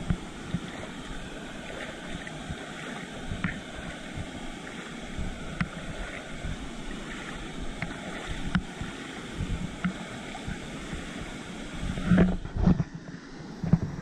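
Pool water lapping and splashing against a camera held at the water's surface, with a steady rush of water behind it. A few louder knocks and splashes come about twelve seconds in.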